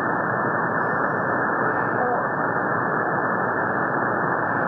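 Steady shortwave static from a software-defined radio receiver tuned to 3455 kHz, an HF air traffic control channel: an even, muffled hiss with no clear voice coming through.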